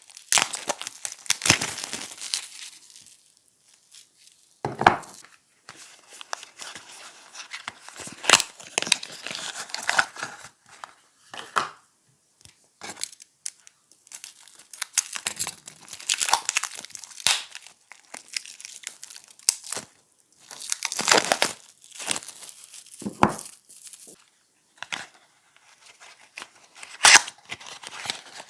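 Soap wrappers being torn open and crinkled by hand, in irregular crackling bursts with short pauses between them.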